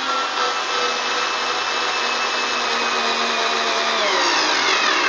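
Vigrue battery screwdriver's electric motor running with a drill bit countersinking a hole in pine. The whine sinks slowly in pitch, then drops more steeply about four seconds in as the bit bites deeper under load.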